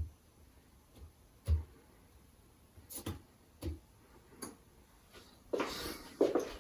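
A few sharp clicks and light knocks, irregularly spaced about a second apart, then a brief rustle near the end.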